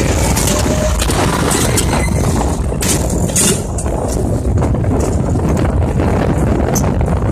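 Zipper carnival ride in motion, heard from inside a tumbling rider's cage: a steady loud rumble of wind and ride machinery, with the cage clattering sharply a few times about three seconds in and again near the end.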